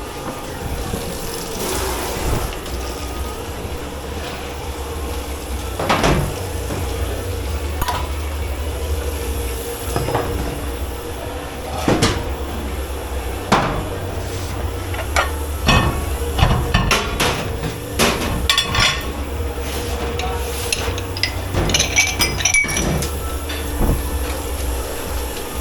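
Dishes, glasses and cutlery being handled in a commercial kitchen dish pit: a string of separate knocks and clinks of crockery and metal, a few ringing, over a steady low machine hum.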